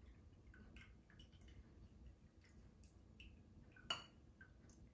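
Chickpea canning liquid dripping and trickling from a tilted tin can into a small cup: faint, irregular drips, with one sharper click about four seconds in.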